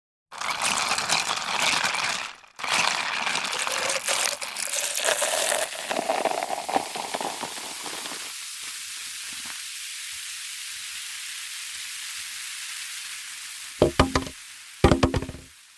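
A fizzy soft drink is poured into a cup, its pitch rising as the cup fills. It then fizzes with a steady high hiss that slowly dies away. Near the end come two short clusters of rattling clicks.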